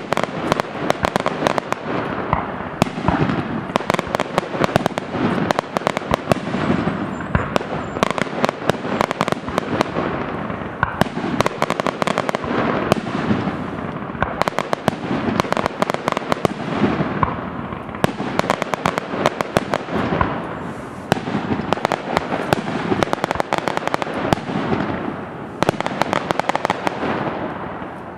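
Fireworks display: aerial shells bursting in quick succession amid dense crackling, the pops and bangs coming thick and fast with no let-up.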